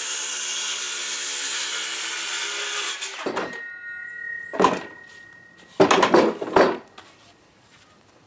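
Electric power saw cutting through a wooden porch board, running steadily for about three seconds until the cut ends. Then several sharp knocks and clatters.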